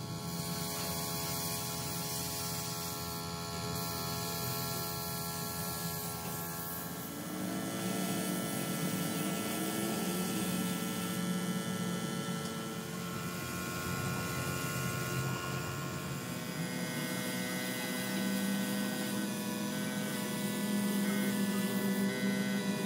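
Steady machine hum from an air compressor feeding a gravity-feed paint spray gun, with the gun's high airy hiss on top; the hum's pitch shifts slightly about a third of the way in and again later.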